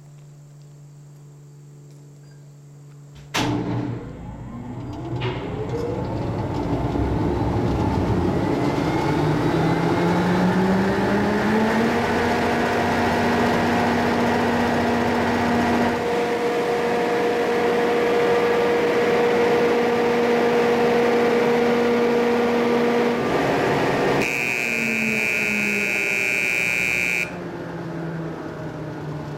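A mine ventilation fan's electric motor switches on with a sudden clunk about three seconds in. It spins up with a rising whine over several seconds, then runs steadily with a loud hum, a run in which the mechanic hears the rear motor bearing crushed. Near the end the pitch drops as it is shut off, and a loud high buzzing tone sounds for about three seconds.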